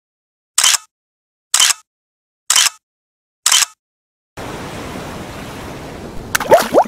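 Four short, sharp, hissy clicks about a second apart with dead silence between them. Then, a little past four seconds in, the steady rush of ocean surf sets in, and near the end quick rising bubbly blips start over it.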